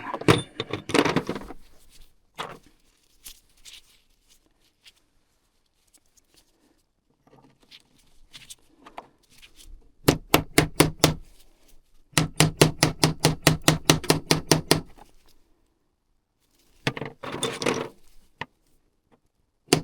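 Rapid light hammer taps driving new rollers into a CVT variator pulley: two runs of quick taps about eight a second, about ten and twelve seconds in, and a shorter burst near the end, with small clicks of parts being handled between.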